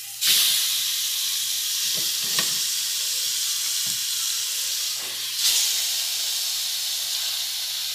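Thin steaks dropped into hot oil with garlic and colorau, sizzling at once with a sudden hiss that then runs on steadily; about five seconds in the sizzle surges again as more meat goes into the pot.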